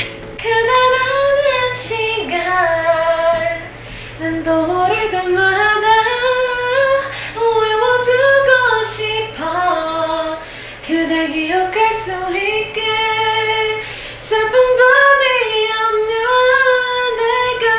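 A female voice singing a melody in long, held phrases, with a steady low note underneath.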